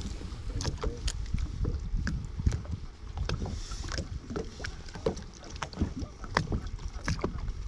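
Small waves lapping and slapping against a fishing boat's hull, irregular light knocks several times a second, over a low wind rumble on the microphone.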